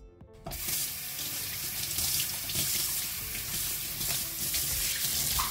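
Kitchen tap running into a stainless steel sink, the stream splashing over a hand held under it. The water starts about half a second in and then runs steadily.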